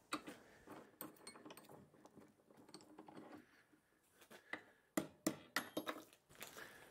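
Faint, scattered metallic clinks and taps of a small steel block and tools being handled in a bench vise, with a few sharper clicks near the end.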